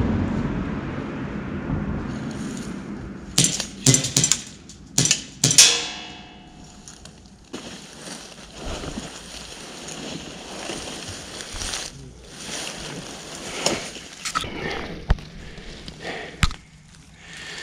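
Several sharp knocks in quick succession, the last ringing out briefly like struck metal or glass, followed by a low steady hiss with a few scattered clicks.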